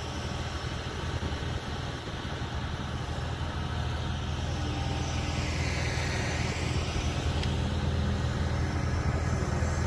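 Steady low engine rumble that grows slightly louder, with a rushing hiss that swells and fades around the middle.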